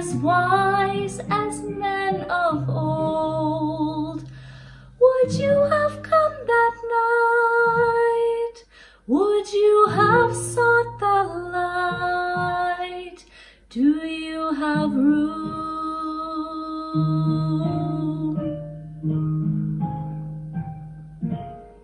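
Singing of a Christmas carol with acoustic guitar accompaniment, in phrases of held notes with short breaths between them.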